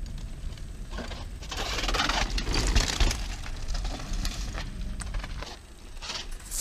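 Mountain bike tyres rolling and crunching over a dirt trail and wooden plank bridges, with the bike rattling and knocking over the bumps. A low wind rumble sits on the microphone throughout.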